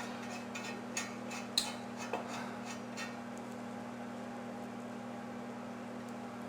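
A few light clicks and taps in the first three seconds, the sharpest about one and a half seconds in, over a steady low hum.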